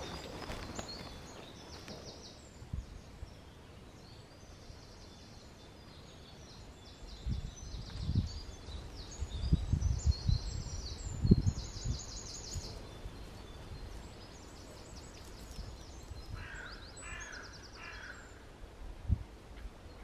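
Spring woodland birdsong: small birds singing short repeated high trills and phrases, with a few lower, harsher calls near the end. Irregular low rumbles and bumps, like wind buffeting the microphone, come through the middle and are the loudest part.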